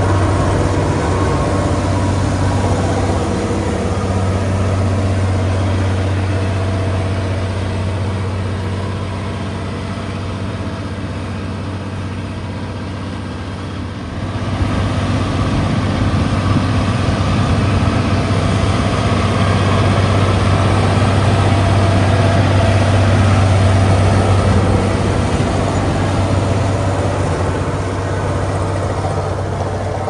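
Heavy diesel engine of road-building machinery running steadily with a deep hum; it grows louder and fuller about halfway through.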